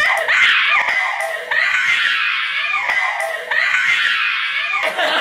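A person's high-pitched, drawn-out screams, about four wavering cries in a row with short breaks between them.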